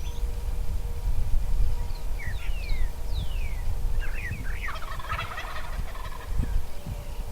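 Rio Grande wild turkey tom gobbling about five seconds in, a rapid warbling rattle. Other birds give short, steeply falling whistled notes before it, over a steady low rumble.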